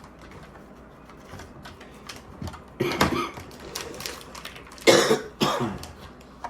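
A person coughing in two bursts, about three seconds in and again about five seconds in, with light clicks of small plastic pieces being handled in between.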